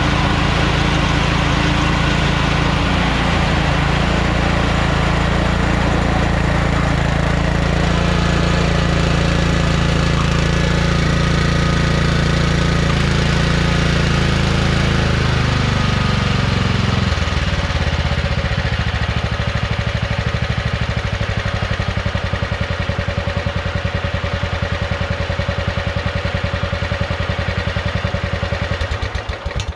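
Riding lawn tractor's replacement engine running at high speed during a test drive, then throttled down about halfway through to a lower idle, and shut off at the very end. The owner says the engine runs great and the tractor has good takeoff power.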